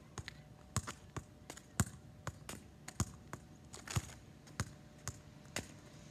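A football being kept up with the feet and knees: a quick, irregular run of taps of the ball off the foot, about two or three a second, with a few louder kicks.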